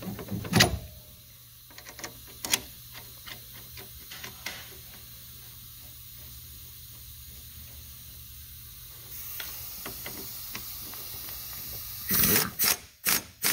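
Hand work on a car's front suspension with a few small metal clicks and clinks, then about twelve seconds in an Earthquake impact wrench fires in several short loud bursts on the bolt clamping the coilover into the front fork.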